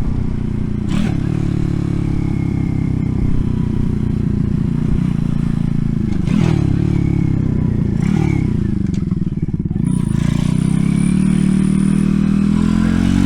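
RPS Racer 140 pit bike's small single-cylinder engine running under way. Its pitch drops and climbs again several times as the throttle is worked, then rises steadily near the end.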